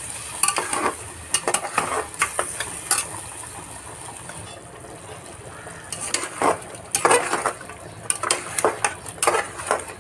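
Flat metal spatula scraping and knocking against an aluminium pressure cooker as mutton pieces in yogurt are stirred, in clusters of strokes with a quieter pause midway, over a steady sizzle of the curry frying.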